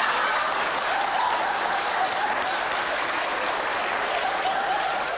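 Studio audience applauding and laughing: steady clapping throughout.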